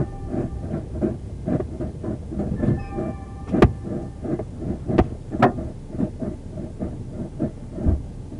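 Irregular knocking and rattling in the back of a police car, with a few sharper clicks near the middle. A steady electronic tone of several pitches sounds twice, the first ending about half a second in and the second lasting about a second a few seconds later.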